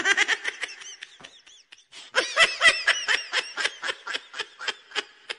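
High-pitched laughter in quick repeated bursts, about four or five a second. It eases off briefly a little before two seconds in, then goes on harder.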